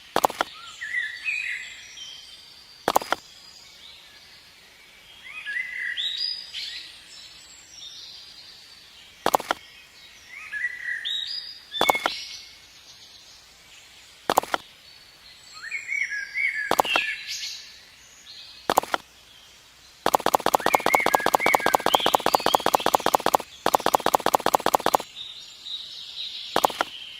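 Birds chirping in short, repeated phrases, with sharp knocks every few seconds. Near the end comes a rapid, even mechanical rattle lasting about five seconds, with a brief break partway through.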